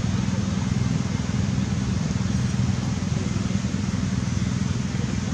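A running engine, heard as a steady low drone with no change.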